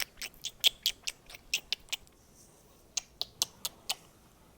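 A rapid series of sharp clicks or taps, about four or five a second, with a pause of about a second in the middle before a few more.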